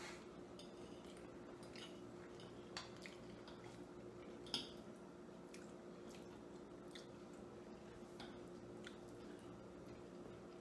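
Faint chewing and soft mouth sounds of two people eating cheesy rotini pasta, with scattered light clicks of forks against plates; the sharpest click comes about four and a half seconds in. A steady low hum runs underneath.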